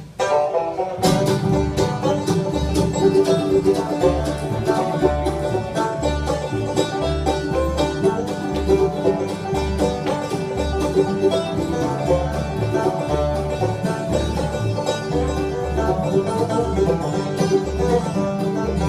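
Live bluegrass band playing the instrumental intro to a song, with banjo to the fore over guitar and a pulsing bass line. The band kicks in about a second in.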